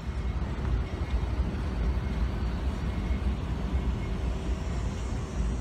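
Steady low rumble of idling diesel locomotives, with wind buffeting the microphone.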